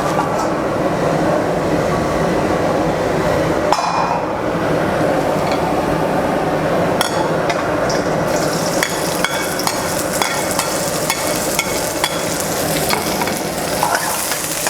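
Food frying in a hot pan, sizzling while it is stirred, with frequent sharp clicks of a utensil against the pan. The sizzle hiss gets brighter about halfway through.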